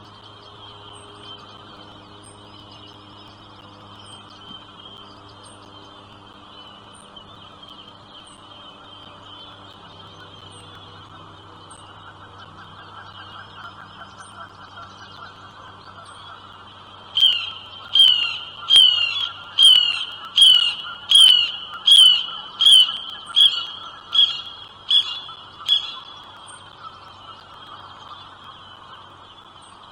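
Birds calling: a steady high-pitched chatter throughout, then, a little past halfway, a run of about a dozen loud, evenly spaced calls, each falling in pitch, at well over one a second.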